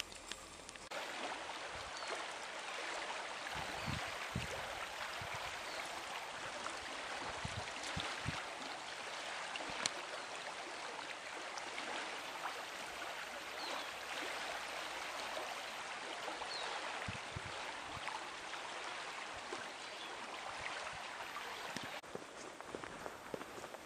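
River water flowing: a steady stream sound setting in about a second in.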